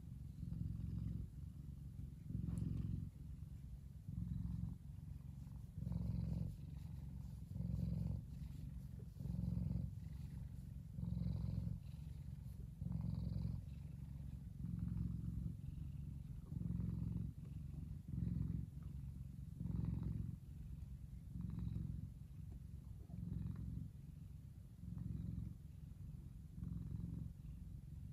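F2 Savannah cat purring while its cheek and chin are scratched. The low, steady purr swells and eases with each breath, about every one and a half to two seconds.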